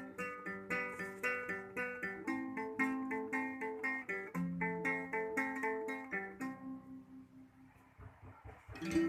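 Guitar picking the closing chords of a slow pop ballad in an even rhythm. The picking stops about six and a half seconds in and the last chord rings out, followed by a few faint knocks.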